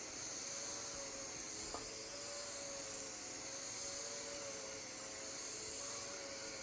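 Oraimo cordless dry vacuum cleaner running on carpet, picking up spilled cornflakes and breadcrumbs: a steady motor whine with a slightly wavering pitch over a hiss of moving air. One brief tick a little under two seconds in.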